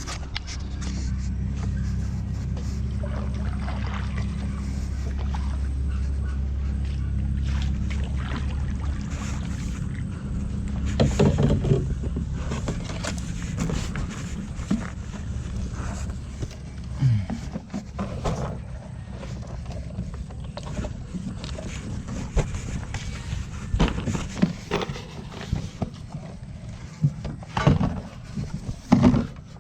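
Small fishing boat's engine running steadily with a low hum, fading away about halfway through, followed by scattered knocks and clatter.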